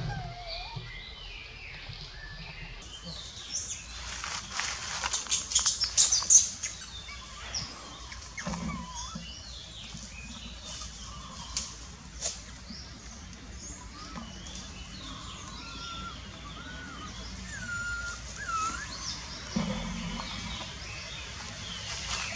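Forest birds chirping and calling, many short high chirps and whistled glides throughout. A flurry of sharp, rapid clicks and chirps about four to six seconds in is the loudest part.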